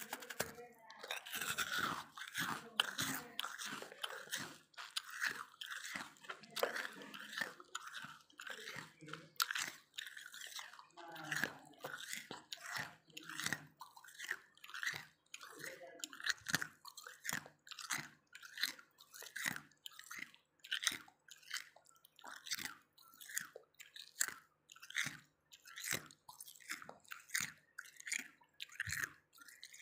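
Close-up chewing of crunchy freezer frost: a dense run of crunches in the first half, then a steady rhythm of single crunchy chews, about one and a half a second.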